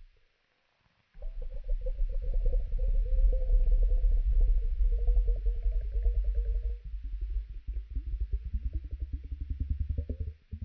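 Human stomach rumbling (borborygmi) slowed down: a deep, drawn-out gurgling rumble made of rapid pulses, starting about a second in, with a long moaning tone that sinks slightly, then several shorter rising groans near the end.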